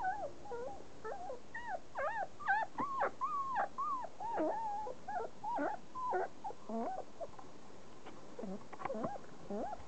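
Four-week-old German Shepherd puppies crying in short, high calls that bend up and down, several a second and sometimes overlapping. The calls thin out over the last couple of seconds.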